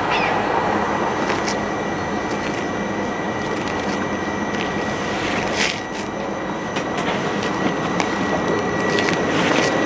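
Approaching passenger train's wheels on the rails: a steady rushing noise with a thin, high, held tone, growing slightly louder toward the end as the train nears.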